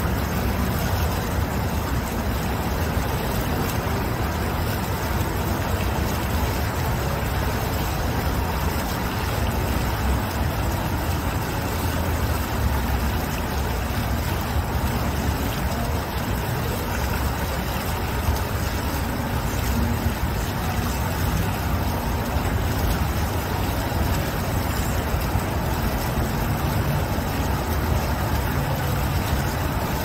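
Fountain jet splashing steadily into its pool, a continuous even rush of falling water over a steady low rumble.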